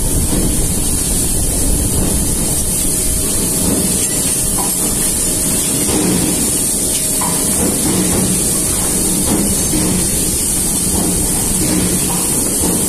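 YLM CNC pipe-bending machine running, a loud steady hiss over a low rumble.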